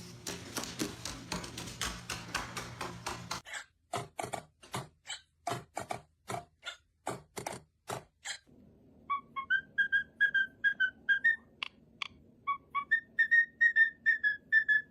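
A dense run of clicks and taps, then sharp single clicks about three a second. From about eight seconds in, a parrot whistles short clear notes, several of them gliding upward.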